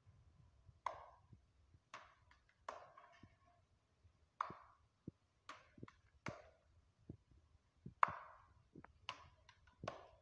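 Bare palms slapping a ball of roti dough back and forth to flatten it into a round for the tandoor: about nine sharp slaps, roughly one a second, at an uneven pace.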